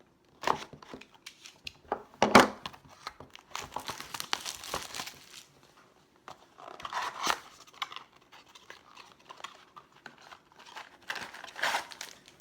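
Trading-card box packaging being torn open and handled: irregular crinkling and tearing in short bursts, the loudest about two seconds in.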